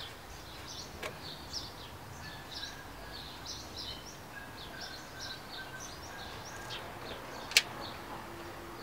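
Small birds chirping in quick, short calls throughout over a low background hiss, with a single sharp click about three-quarters of the way through.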